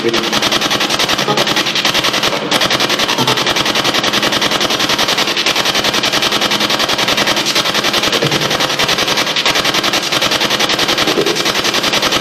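SB7 spirit box sweeping through radio stations: a steady, loud stream of radio static chopped into rapid, even pulses.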